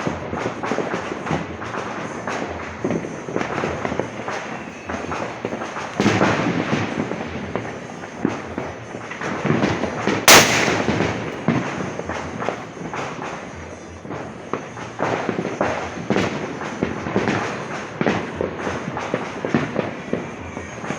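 Firecrackers going off in a long, dense run of rapid cracks and pops, with one much louder bang about ten seconds in.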